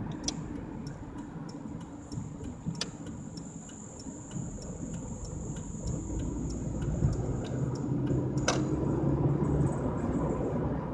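Car turn signal ticking steadily, about three ticks a second, over low engine and road noise. It stops with a louder click near the end, as the signal cancels after the turn.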